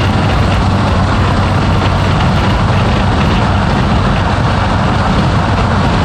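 Mazdaspeed6's 2.3-litre turbocharged four-cylinder under way at a steady pace: a constant low engine drone over road and wind noise, with no rise or fall in pitch.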